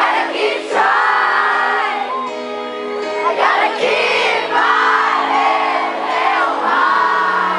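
Live pop-rock concert music heard from within the audience: a woman singing lead into a microphone over the band's held chords and electric guitar, with crowd noise mixed in.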